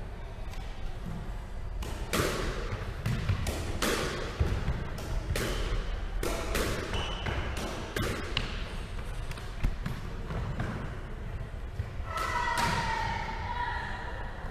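Squash rally: a series of sharp smacks of racket on ball and ball off the walls, ringing in the enclosed court, stopping about ten seconds in.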